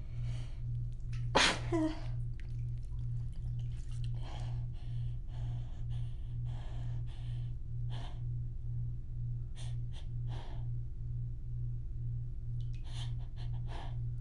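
A person sneezes once, sharply, about a second and a half in, followed by a string of short breaths, gasps and sniffs. A low hum pulses steadily underneath.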